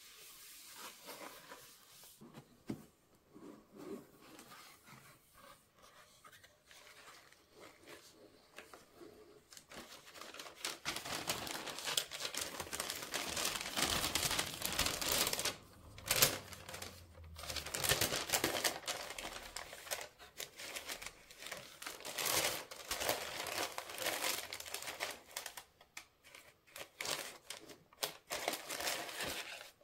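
Shoe-box packaging being unwrapped and handled: crinkling, rustling and tearing, soft for about the first ten seconds, then louder and busier, with a sharp loud crackle around the middle.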